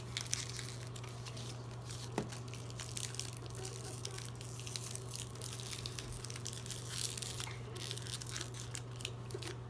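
Crinkly Shopkins toy packaging being torn open and crumpled by hand, a run of irregular crackles and rips, over a steady low hum.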